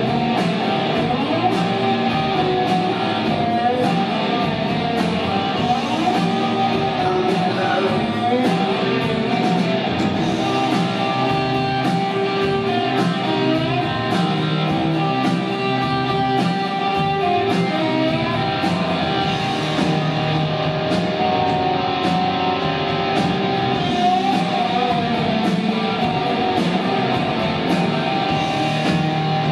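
Live rock band playing an instrumental passage without vocals: electric guitar over a steady drum beat.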